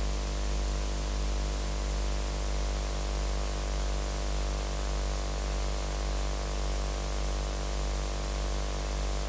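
Steady electrical mains hum, a low tone with a stack of overtones, under an even hiss of static, wavering slightly in loudness.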